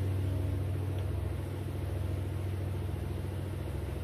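Steady low machine hum, like a motor or engine running continuously.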